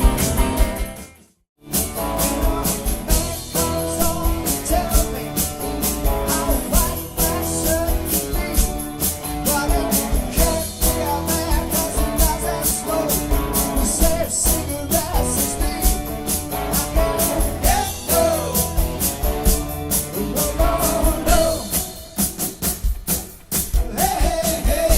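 Rock and roll music with drums and guitar, with a brief silent break about a second in before the music starts again.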